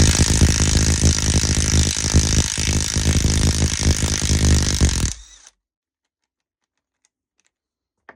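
Power tool running loudly for about five seconds, undoing bolts on a manual gearbox casing, then cutting off abruptly.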